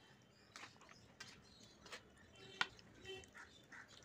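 Faint, soft squelching of hands mixing raw chicken pieces into a yogurt marinade in a bowl, with a few sharp clicks, the loudest about two and a half seconds in.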